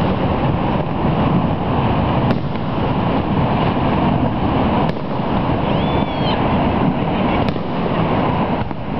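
Aerial fireworks bursting: three sharp pops about two and a half seconds apart over a steady rushing roar, with a brief faint whistle about six seconds in.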